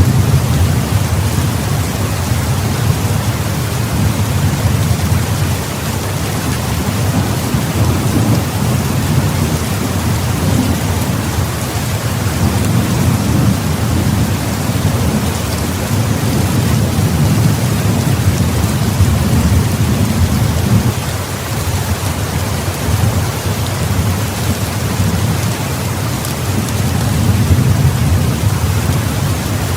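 Heavy rain falling steadily, with low thunder rumbling underneath that swells and eases throughout.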